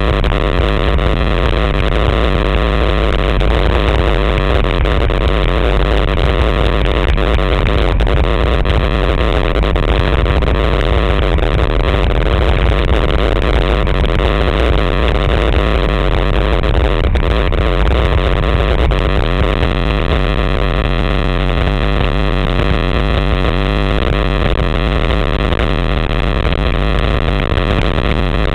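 Wind buffeting the microphone of a bike-mounted camera during a fast road-bike descent: a loud, steady rush of noise, heaviest in the low end.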